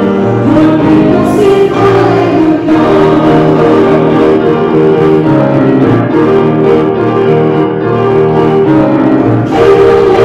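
A church hymn: singers with a keyboard accompaniment, in held chords that change every second or so.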